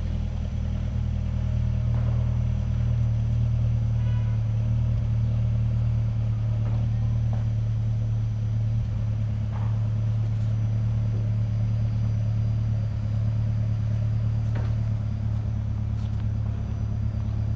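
Mazda 3 MPS's turbocharged 2.3-litre four-cylinder idling steadily on a cold morning start, heard through an exhaust with a CNT catted downpipe, Vibrant Ultraquiet resonator and stock cat-back.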